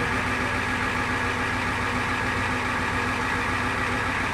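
Fire engine running steadily at idle: a constant low engine rumble with a steady high whine over it.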